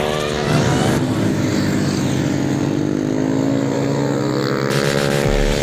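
Pit bike engines revving as the bikes ride through a bend, several engine notes overlapping and rising and falling in pitch as riders roll off and accelerate.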